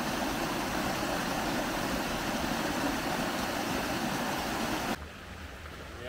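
Small woodland stream rushing and splashing over rocks in a little cascade, a steady noise that cuts off about five seconds in.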